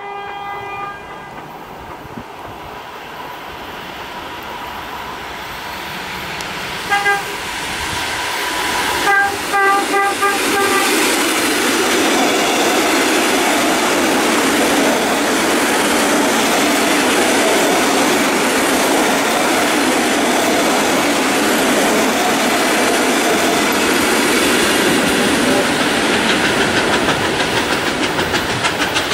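EP2D electric multiple unit sounding its horn in greeting: a held note at the start, one short blast about seven seconds in, and a quick series of short toots around nine to ten seconds. The train then passes close, the rumble of its wheels on the rails growing loud and turning to a quick, regular clickety-clack near the end.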